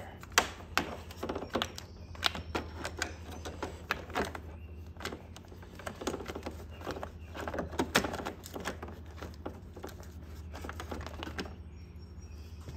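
Irregular plastic clicks, taps and rattles as hands push an SAE battery pigtail lead, its inline fuse holder and ribbed wire loom into place among the scooter's plastic battery-compartment parts. The clicking stops near the end, leaving a steady low hum.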